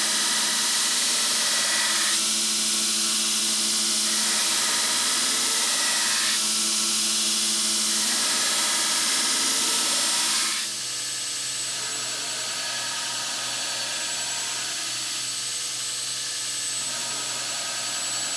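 Belt grinder running while a hardened steel knife blade is ground against the belt. About ten seconds in, the sound steps down, lower in pitch and quieter, as a fine Trizact belt runs at about half speed.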